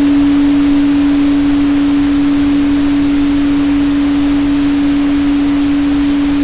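A steady, unbroken 285 Hz pure tone held over a constant hiss of pink noise.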